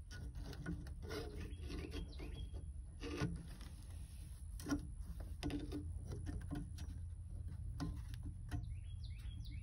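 Pliers working a metal retaining clip off a VW Beetle's shift rod: scattered small metal clicks and scrapes, with a couple of sharper knocks about three and four and a half seconds in.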